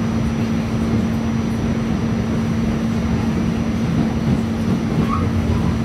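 An R46 New York City subway car running, heard from inside the car: a steady rumble of wheels and running gear with a constant low hum.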